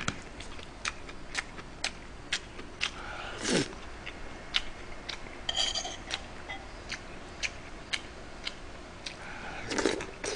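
Close-miked eating: many sharp wet clicks and smacks of chewing, with a metal spoon clinking against the earthenware stew pot and bowls. One ringing clink comes about halfway through as the spoon scoops from the pot.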